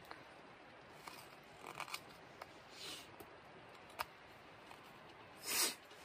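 A Morakniv carbon-steel knife shaving a dry pear-wood fork blank in short slicing strokes. The strokes are several light cuts and a sharp tick about four seconds in, with the loudest, longer cut near the end.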